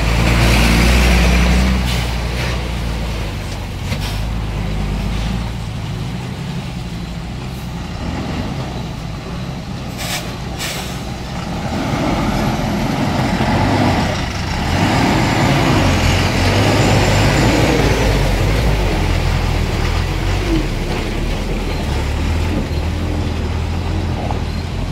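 Heavy truck engines running as trucks crawl through deep mud and standing water, with a brief sharp hiss about ten seconds in.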